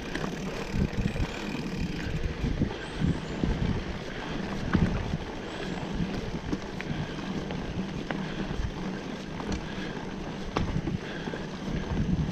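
Wind buffeting the microphone during a bicycle ride, over a steady low rumble, with a few sharp clicks.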